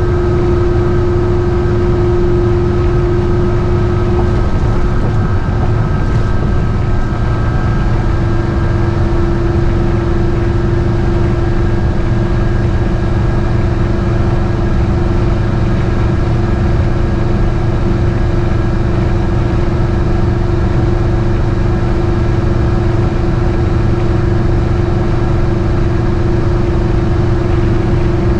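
GMC motorhome's V8 engine and road noise, heard from inside the cab while driving at a steady pace. A steady whine runs over the low rumble and fades briefly about five seconds in.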